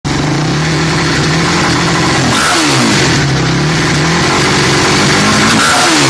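Yamaha YFZ450 sport ATV's single-cylinder four-stroke engine running steadily, its pitch dipping briefly twice, about three seconds apart.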